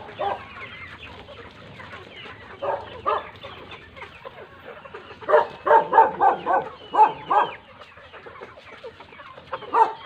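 A flock of chickens clucking, with a loud run of overlapping clucks about halfway through.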